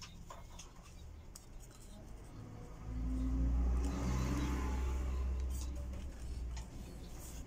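Hard plastic parts of a phone stand clicking and tapping as they are handled. A low engine rumble from a passing vehicle swells about three seconds in, is the loudest sound, and fades away.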